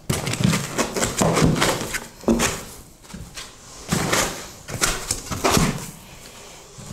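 Foam packing inserts being pulled out of a cardboard shipping box: irregular rubbing and scraping of foam against cardboard in several bursts, with a short lull about three seconds in.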